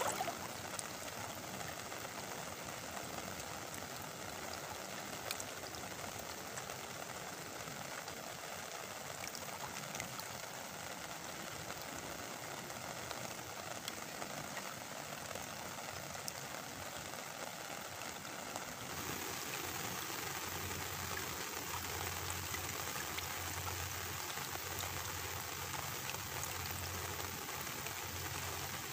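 Heavy rain falling on river water: a steady hiss with scattered drop ticks. About two-thirds of the way through the sound shifts and a low hum joins the rain.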